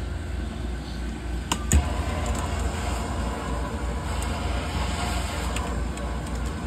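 Steady low machine hum, with one sharp knock a little under two seconds in.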